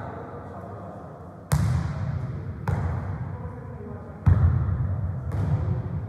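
A football kicked and bouncing during a football-tennis rally in a sports hall: four sharp thuds about a second apart, starting about a second and a half in, the loudest just past the middle, each ringing on in the hall's echo.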